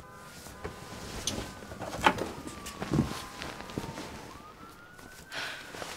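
Emergency vehicle siren wailing, its pitch rising and falling slowly, with knocks and thumps over it, the loudest about two and three seconds in.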